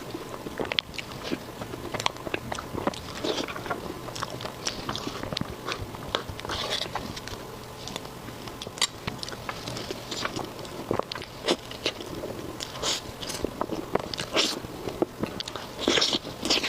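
Close-miked eating sounds: biting and chewing, with many sharp wet clicks and smacks at an irregular pace.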